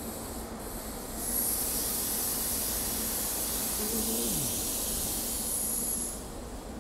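A steady high-pitched hiss that starts about a second in and cuts off sharply about five seconds later.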